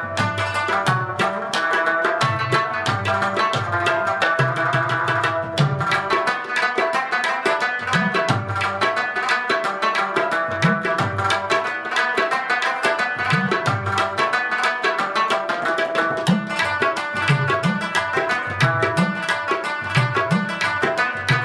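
Afghan rubab instrumental music with tabla: quick plucked-string runs over low drum strokes that bend in pitch.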